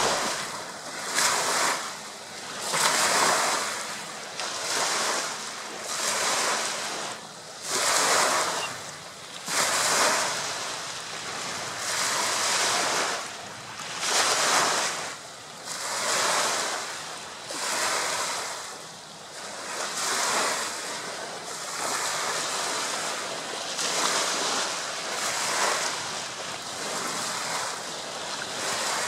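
Small waves breaking and washing up a shell-and-pebble beach, one rush of surf about every two seconds.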